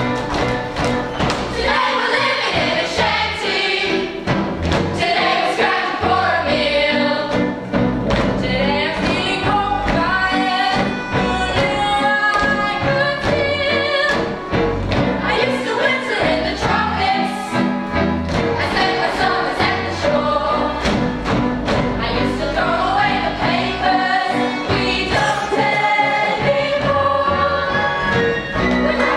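A stage chorus singing a musical-theatre ensemble number together over band accompaniment with a steady beat.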